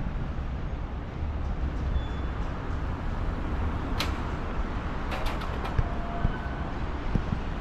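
Traffic on a busy city trunk road: a steady low rumble of passing vehicles. A single sharp click comes about four seconds in, and a short run of clicks follows a second later.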